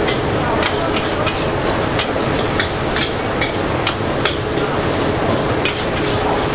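Egg frying in hot oil in a wok beside pad thai noodles, sizzling steadily, while a metal spatula scrapes and clinks against the wok again and again.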